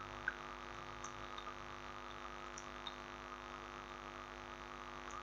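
Steady mains hum picked up by the recording microphone, with a few faint mouse clicks, the loudest shortly after the start.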